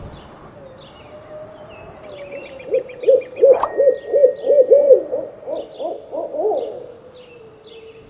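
An owl giving a series of about a dozen quick, evenly spaced hoots, roughly four a second, after a faint steady tone. A single sharp ding rings out early in the series, and faint high chirps sound in the background.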